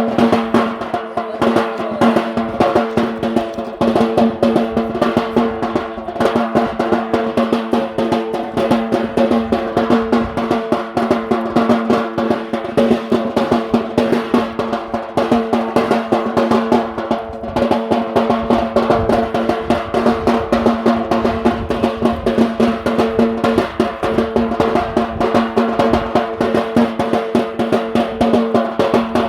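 Drumming for a Yemeni bara' dance: rapid, dense drum strokes going on without a break, over a steady droning tone held throughout.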